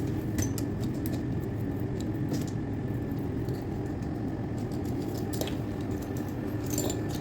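Steady low rumbling background noise with a faint high tone, and scattered light clicks and taps that come more often near the end.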